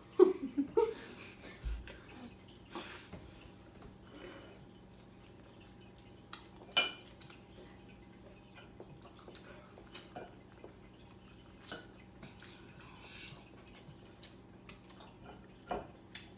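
Forks clinking and scraping on a plate, a scatter of short sharp taps with quiet gaps between. The sharpest come near the start and about seven seconds in.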